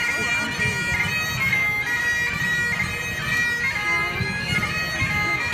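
Highland bagpipes playing a dance tune: a melody over steady drones.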